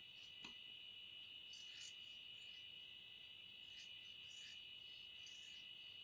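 A cricket trilling on one steady high pitch, faint. Over it, about five soft crisp snips and rustles of scissors cutting a paper pattern, starting about one and a half seconds in.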